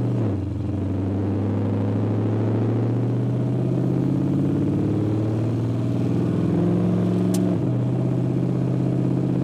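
Cammed 5.3-liter LS V8 in a Ford Ranger pulling in gear, heard from inside the cab. Its note climbs slowly, then drops sharply about seven and a half seconds in as the TH350 automatic shifts up, with a short click just before the shift.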